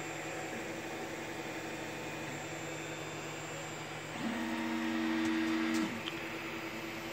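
Creality CR-10 S5 3D printer running a first-layer bed-leveling test print, a steady hum of motors and fans with a few held tones. A little past the middle the tones jump to new pitches and the sound grows louder for about a second and a half, then drops back.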